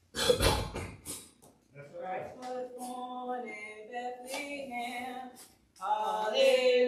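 A loud bump at the microphone right at the start, then women's voices begin singing a hymn in long held notes, growing fuller near the end.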